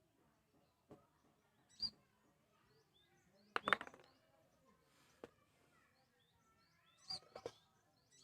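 Scattered clicks and light knocks of small parts being handled, a few seconds apart, the loudest cluster about halfway through. Faint bird chirps in the background.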